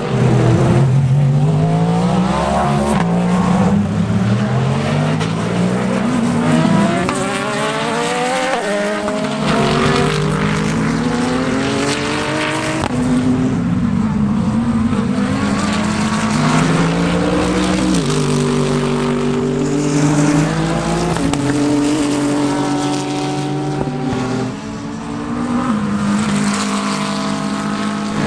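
Race car engines accelerating hard and changing gear, the pitch climbing and then stepping at each shift, over and over.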